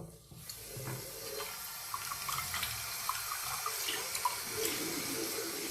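Water running steadily from a tap into a sink as a container is rinsed out.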